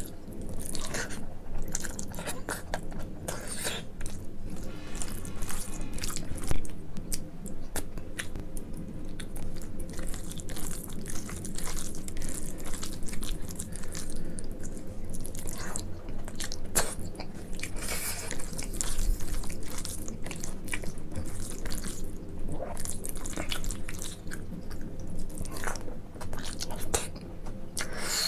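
Close-up chewing and mouth sounds of a person eating soft rice mixed with mashed eggplant (brinjal bhorta) and dal by hand, with many short, irregular clicks throughout.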